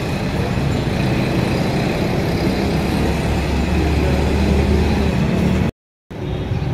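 Steady low rumbling outdoor background noise, like street traffic, with no speech. It cuts out abruptly for a moment about six seconds in, then resumes.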